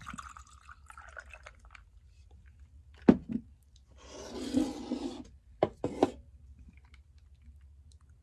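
Canned espresso with cream poured over ice into a glass, trickling for about the first two seconds. Then a sharp knock about three seconds in, a short rushing noise, and two more knocks around six seconds, as the can and glass are handled.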